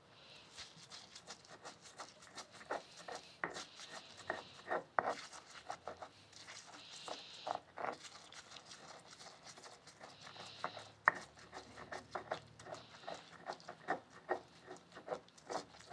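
A stone pestle (tejolote) crushes and grinds chopped onion with salt in a volcanic-stone molcajete. Irregular stone-on-stone knocks come several a second, with a gritty grinding rub in between.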